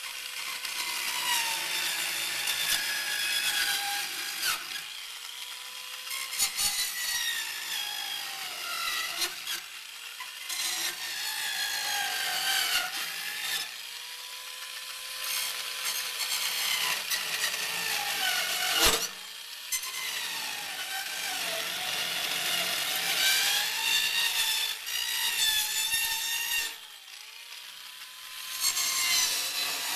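Electric double cut (dual-blade) saw cutting through a snowmobile chassis's running board. The motor's pitch sags as the blades bite into the metal and climbs back when they run free, several times, under a high rasping cutting noise.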